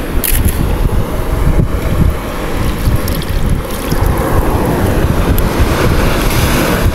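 Heavy wind buffeting the microphone over the sound of surf; partway through, water is poured from a bucket and splashes over a rock.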